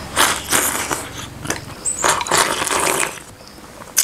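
A person eating soup-soaked rice straight from the bowl's rim, shoveling it in with chopsticks: several short bursts of slurping, with chopsticks scraping and clicking against the porcelain bowl.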